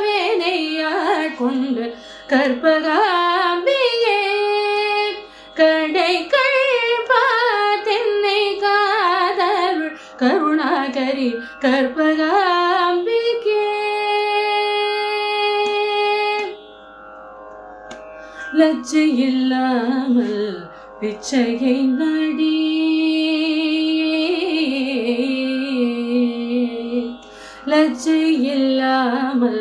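A woman singing a Carnatic kriti solo, her voice gliding through ornamented phrases, with a long held note about halfway through, over a faint steady drone.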